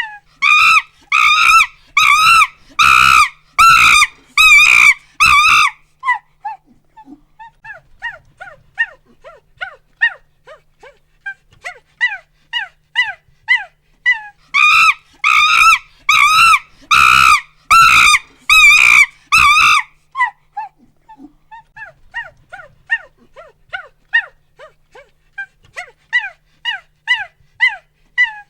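Chimpanzee pant-hoot calls: rapid short hoots, several a second, that twice build into a run of loud screams, about a second in and again about halfway through, before falling back to quieter hoots.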